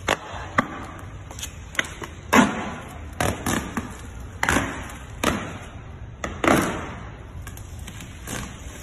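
Matte paint protection film being peeled off a car's painted body panels and crumpling in the hand: irregular crackles and crinkles, with a few longer rustles of about half a second spread through.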